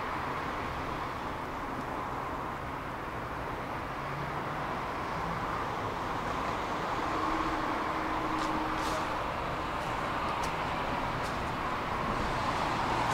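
Steady running noise of a moving vehicle, most likely a tram, with a faint tone held for about two seconds in the middle and a few light clicks.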